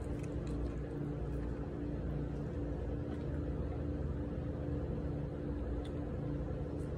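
A steady mechanical hum with a constant low drone, and over it a few faint crisp clicks of a cat crunching dry kibble.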